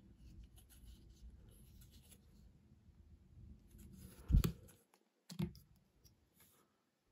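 Faint rustling of plastic toy pieces being handled, then a sharp knock about four seconds in and a smaller one a second later, as a Lego minifigure and its plastic brick stand are moved.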